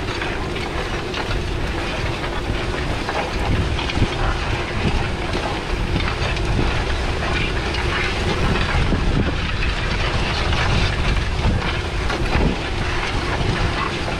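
Pottinger five-furrow reversible plough working through stubble: a steady scraping, tearing rush of soil over the shares and mouldboards, with scattered rattles and knocks from the frame and a steady engine drone from the tractor pulling it.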